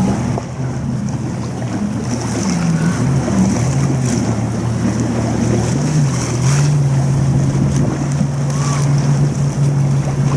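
Sailboat's inboard engine running under way, a steady low drone that shifts slightly in pitch a few times, with wind and rushing water around the hull.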